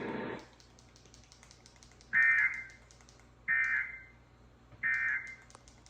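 Emergency Alert System end-of-message signal from a broadcast receiver: three short bursts of warbling SAME data tones, about a second apart, closing the monthly test. Faint, rapid clicking runs underneath.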